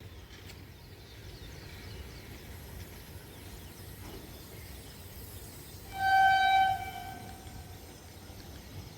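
One short horn blast from a WAP-4 electric locomotive, about six seconds in, over a steady low rumble. The single clear note is the loudest sound and fades away quickly.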